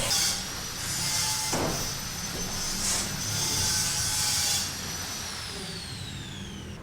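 Electric power tool cutting: its motor whines at a steady high pitch through several loud, hissing cutting passes, then it is switched off and the whine falls in pitch as it spins down over the last couple of seconds.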